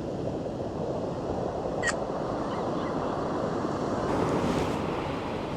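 Ocean surf washing steadily, swelling louder about four seconds in, with wind buffeting the microphone. A brief high squeak cuts through about two seconds in.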